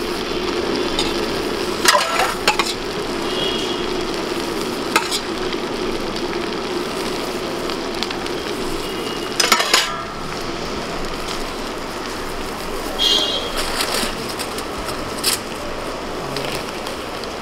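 Steel spoons clinking now and then against steel bowls and trays as papdi chaat is spooned together, over a steady hiss of stall noise.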